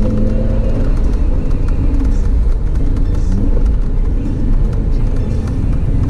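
Audi TT RS's turbocharged five-cylinder engine and tyre noise on a wet road, heard from inside the cabin while driving uphill. A steady engine note fades about a second in, leaving a low rumble, with a brief rising note near halfway.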